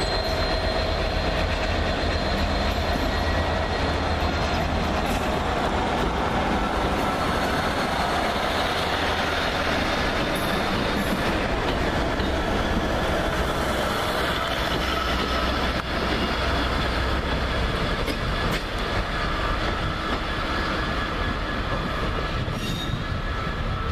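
GBRf Class 66 diesel-electric locomotive, with its two-stroke V12 diesel engine, running as it hauls a train of covered hopper wagons slowly past. Its steady engine rumble mixes with the wagon wheels rolling over the track and a few thin steady squealing tones.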